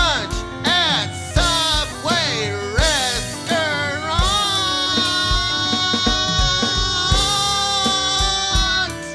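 A pop song's instrumental passage with a steady kick-drum beat and a gliding lead melody in short swooping phrases, which settles into one long held note about four seconds in.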